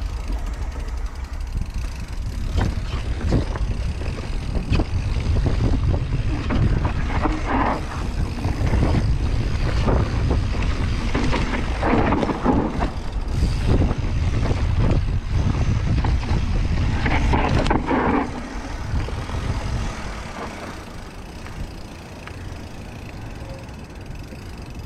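Mountain bike descending a dirt trail at speed: wind buffeting the camera microphone, with the rattle and clatter of the bike and tyres over bumps. It gets quieter for the last several seconds as the pace slows.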